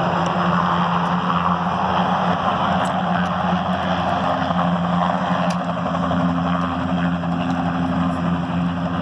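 Helicopter running close by: a loud, steady noise with a steady low hum under it.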